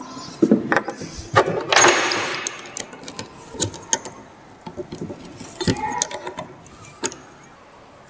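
Steel roller chain and sprocket parts clinking and rattling as they are handled and fitted by hand: a string of sharp metallic clicks and knocks, with a longer rattle about two seconds in. The clicks stop about a second before the end.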